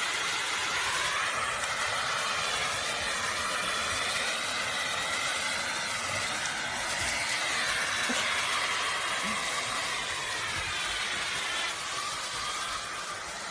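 Vacuum cleaner running steadily, its motor whine drifting up and down in pitch as the nozzle is moved about, a little quieter near the end.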